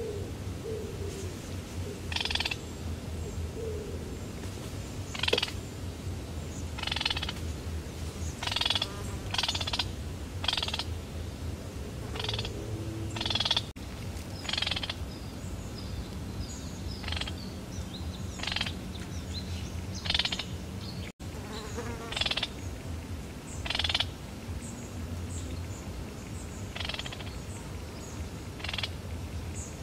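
Frogs croaking in short, rasping calls every second or two, over a steady low hum.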